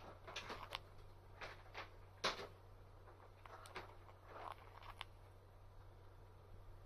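Peach-faced lovebird snoring in its sleep: a scattered series of faint short clicks and soft raspy breaths, the loudest about two seconds in.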